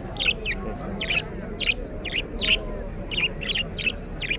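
Caged finches chirping, about ten short, sharp calls at roughly two a second.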